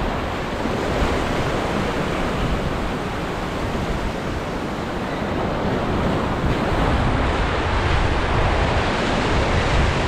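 Ocean surf washing and foaming over shoreline rocks, a steady rushing noise, with wind buffeting the microphone.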